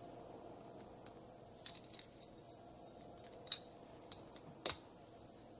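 Small hard-plastic parts of a Transformers action figure clicking as hands turn and fit them together: a handful of light, separate clicks, the loudest about three and a half and nearly five seconds in.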